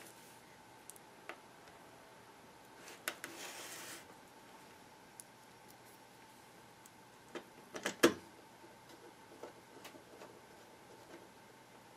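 Plastic case of an HP-55 calculator being handled and fitted together: a short scrape about three seconds in, then a quick run of sharp plastic clicks near eight seconds in, the last one the loudest, with scattered light ticks between.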